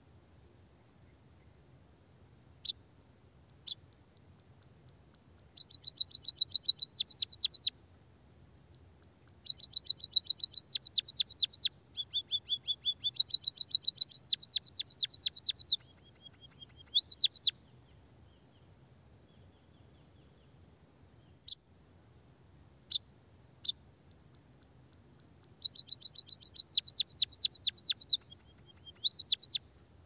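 White-headed munia singing: canary-like rolling trills of rapid high chirps, about seven a second, in four runs of two to three seconds, with single sharp call notes between them. A faint steady high hum sits underneath.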